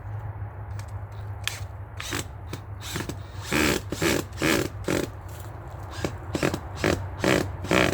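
Battery-powered drill driving a screw through a stick into a tree trunk, run in a series of short bursts that come quicker in the second half.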